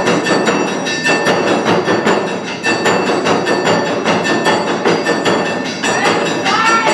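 Live Awa Odori festival music: drums struck in a quick, steady rhythm with a metal gong ringing over them. A few high sliding notes come in near the end.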